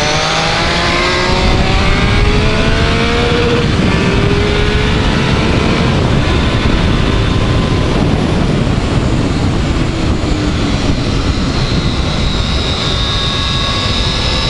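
Triumph Speed Triple's three-cylinder engine pulling hard onto a straight, its pitch rising through two gears in the first six seconds, then mostly buried under loud wind noise on the camera at speed. Around ten seconds in the pitch falls as it slows, and it rises again near the end.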